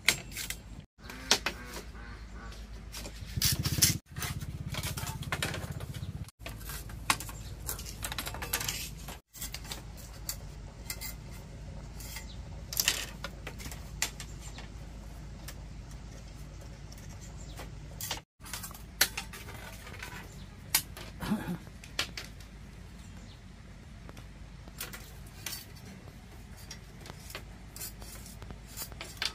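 A billhook blade splitting and shaving thin bamboo strips by hand: irregular short scraping strokes and light clicks and taps of the bamboo.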